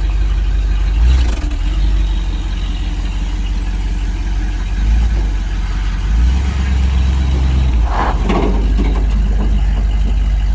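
A 1976 Dodge D200 pickup's engine running steadily, with a brief knock about a second in and a short rougher burst about eight seconds in.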